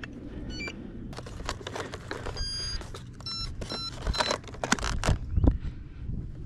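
Short electronic beeps from the radio gear of an E-flite Habu 70mm EDF jet as it powers up. A quick rising run of tones comes about half a second in, then a longer steady beep and a few more single beeps. Under them run handling clicks and knocks, with a couple of heavier thumps near the end.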